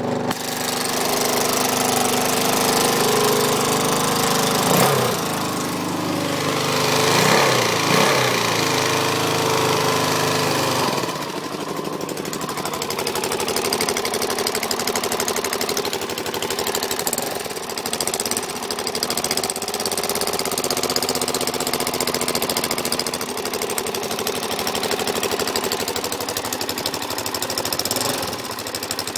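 Suzuki DR-Z400SM single-cylinder four-stroke engine running with a fast, loud clicking, blipped a few times in the first ten seconds or so and then settling to a steady idle. The clicking began after the engine was over-revved in first gear, and the owner thinks it comes from the carburettor/crankcase area.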